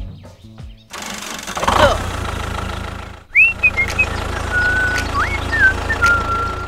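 Tractor engine sound running steadily with a fast, even pulse, starting about a second in. From about halfway, several high whistled chirps and glides sound over it.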